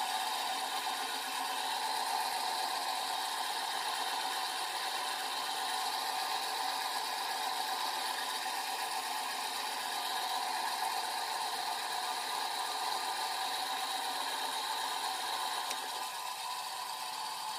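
Bench metal lathe running, with a steady whir from its spindle and gears as the tool takes a finishing cut on the turning metal workpiece. The sound eases slightly about sixteen seconds in.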